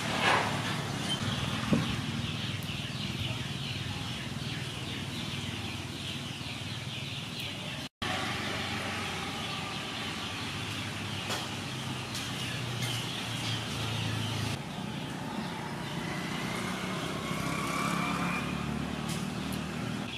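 Outdoor ambience: a steady hum of distant road traffic with birds chirping, and a couple of short sharp sounds in the first two seconds.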